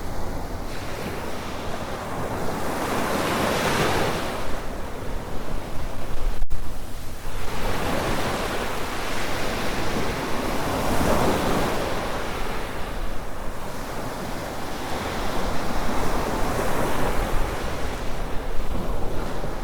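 Waves breaking and washing up a sandy beach in three surges about six to seven seconds apart, over a steady low rumble of wind on the microphone.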